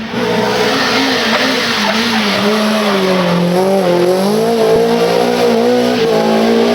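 Rally car engine running hard at high revs, its pitch dipping and rising as the throttle is worked, over a loud hiss of sliding tyres.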